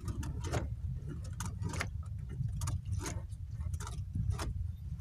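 Sharp clicks and knocks, unevenly spaced at about two a second, as a longline is hauled in by hand over the bow of a small boat, over a steady low rumble.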